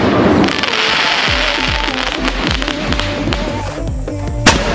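Electronic intro music with a steady drum beat, layered with firework sound effects: a hissing burst through the first two seconds and a sharp bang near the end.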